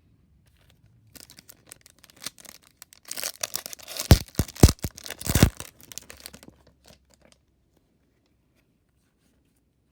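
Plastic wrapper of a trading-card pack crinkling and tearing open, crackling loudest through the middle with three heavy handling thumps, then dying away.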